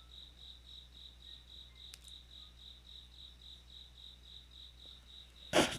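A cricket chirping steadily in the background: a high pulsing trill of about five pulses a second, over a low steady electrical hum. A brief loud burst of noise comes near the end.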